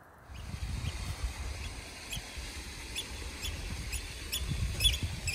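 Short, high squeaks repeating about twice a second over a low, gusty rumble of wind on the microphone, starting suddenly a moment in.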